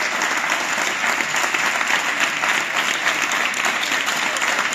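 Audience applauding steadily in an auditorium, many hands clapping at once.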